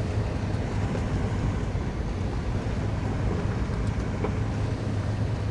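Toyota FJ Cruiser's 4.0-litre V6 and tyres on a dry dirt road, heard from inside the cabin while climbing in four-wheel drive: a steady low engine hum under road noise, with a faint knock about four seconds in.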